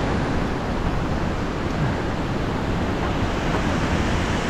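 Steady, loud rush of whitewater from fast river rapids.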